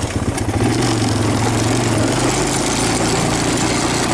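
2000 Honda Recon 250 ATV's single-cylinder four-stroke engine running at a steady note while the quad is ridden. A constant rushing noise sits under it.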